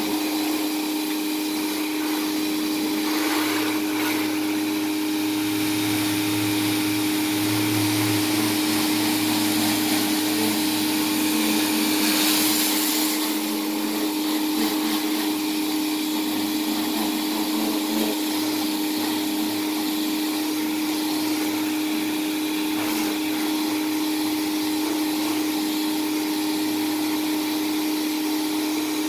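A pressure washer running with a steady hum, and the hiss of its water jet spraying the house siding. The hiss grows briefly louder and brighter a little before halfway.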